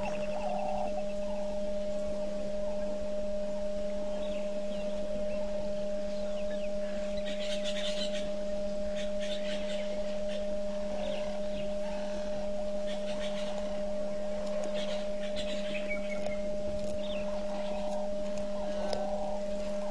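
A steady electrical hum with a pure tone, with short chirps of birds calling faintly now and then.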